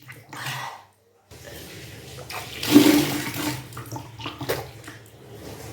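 Water gushing out of the mouth and splashing down during kunjal kriya, the deliberate vomiting of drunk salt water, with a throaty retch at its strongest. The gush starts about a second in, peaks near the middle and tails off.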